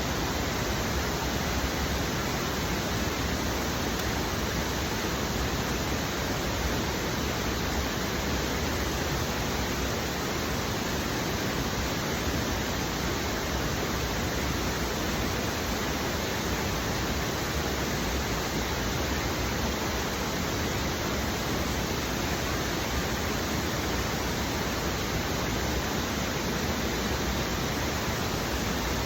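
A waterfall tier pouring: a steady, even rush of falling water that does not change.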